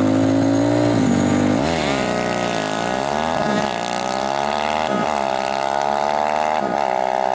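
Two-stroke racing moped engines held at high revs on the start line, then launching with a dip in pitch and accelerating hard, the pitch climbing and dropping sharply three times as they shift up through the gears.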